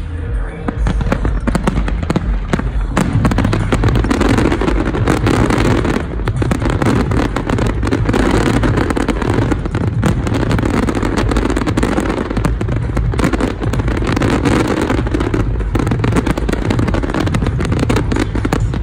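Aerial fireworks display: a dense, rapid volley of shell bursts and crackle, bangs following one another with hardly a gap.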